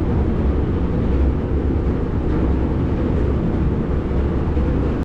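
Wind rushing over the microphone at the bow of a moving car ferry, with the steady low rumble of the ship under way beneath it.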